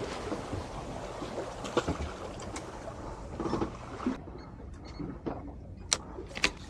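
Wind and sea noise around a drifting small boat, with a few sharp clicks and knocks. The hiss cuts out suddenly a little past halfway.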